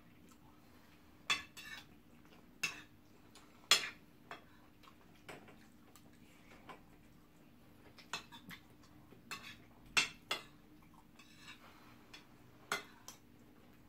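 Forks clinking and scraping against plates of rice and stew: sharp, irregular clicks, a dozen or so, some in quick pairs, over a faint steady hum.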